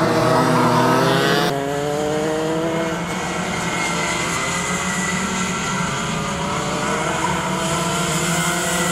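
Racing kart two-stroke engines running at high revs as karts pass on the track, the pitch rising and falling with the throttle. The sound changes abruptly about one and a half seconds in.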